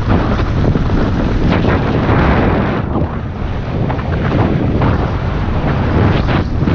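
Mountain bike riding fast down a loose, stony trail: steady wind noise on the microphone over the rumble of tyres on gravel, with frequent knocks and rattles as the bike hits bumps and stones.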